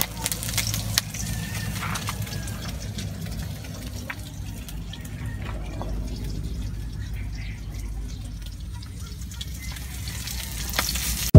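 Fish frying in a wok over an open wood fire: a steady sizzling hiss, with crackles from the burning firewood that are thickest in the first couple of seconds.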